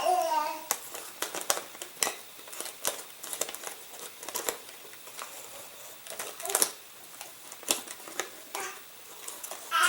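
Clear plastic packing tape crinkling as it is handled and pressed down, with scattered small clicks and taps, one louder about six and a half seconds in.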